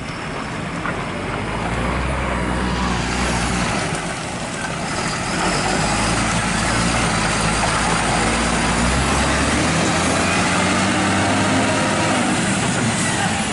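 UD Quester tanker truck's diesel engine working hard under load, getting louder over the first couple of seconds as the truck comes close, while it struggles up a slippery mud track with its wheels slipping.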